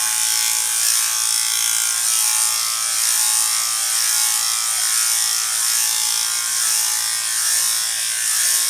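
Electric dog grooming clipper fitted with a plastic attachment guard comb, running steadily as it is drawn through a dog's coat with the grain.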